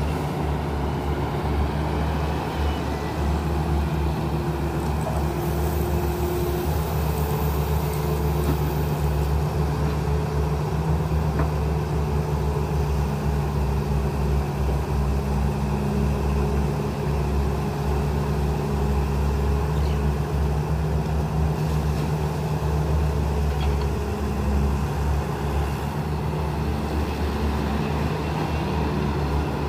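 Sumitomo hydraulic crawler excavator's diesel engine running steadily under working load as it digs and swings, its tone rising a little through the middle.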